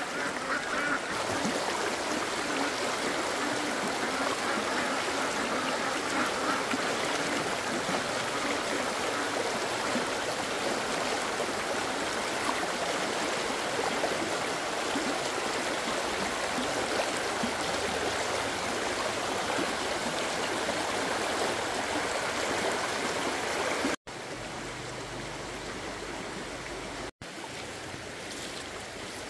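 A flock of ducks quacking continuously in a dense chatter. Near the end it cuts abruptly to a quieter, steady rush of running water.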